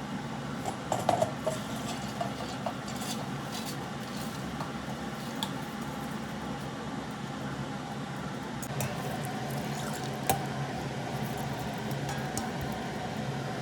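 Water being poured and swirled in a kitchen container, with occasional light clinks of utensils, over a steady low hum. It is the rinse water from washing soaked lentils and rice being drained off and collected.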